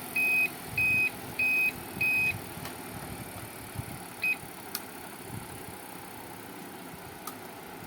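Treadmill control-panel beeper sounding four short, evenly spaced beeps about 0.6 s apart, then a single short beep about four seconds in, as the speed is lowered by the repaired touch switches. A low, steady hum runs underneath.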